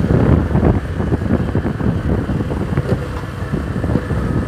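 Motorcycle engine running as the bike rides along at low speed, with wind buffeting the microphone.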